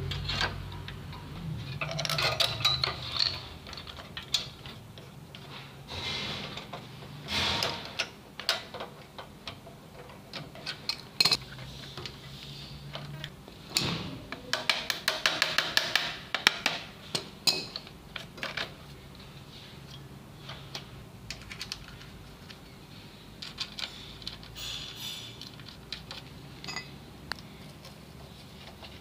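Scattered clicks, clinks and knocks of metal and plastic parts being handled while a small petrol water-pump engine's carburetor linkage and plastic air-filter housing are refitted by hand. A spate of quick rattling clicks comes about halfway through.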